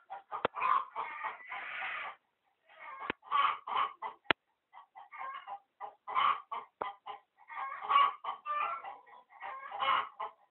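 Chickens clucking in short bursts of calls, with a few sharp clicks in between.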